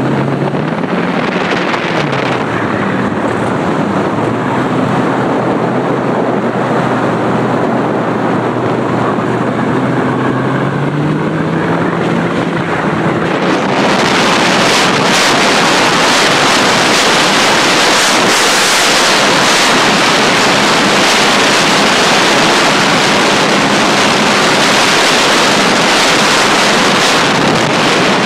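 Personal watercraft engine running, its pitch sliding up and down as it is throttled and passes by, over the hiss of spray. About halfway through, a loud, steady rush of wind on the microphone and water noise takes over as the watercraft carrying the microphone runs at speed.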